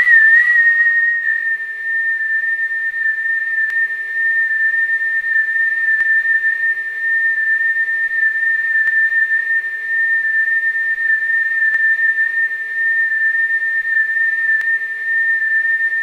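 One long, steady, high-pitched whistling tone that starts suddenly, wavers briefly at first, then holds unbroken at a single pitch.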